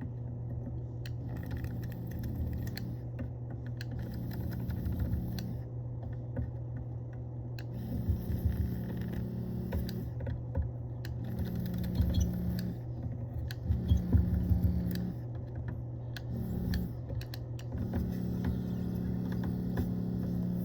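Steady hum of a solder fume extractor (air filter) fan, with a desoldering tool switching on and off in spells of one to two seconds and light clicks of tools on the circuit board as the fuel pump relay's solder joints are cleared.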